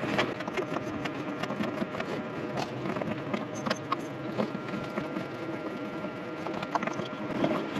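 Small clicks and scrapes of a plastic anti-siphon valve being twisted by hand onto a threaded brass fitting while its threads are started. A faint steady hum runs underneath.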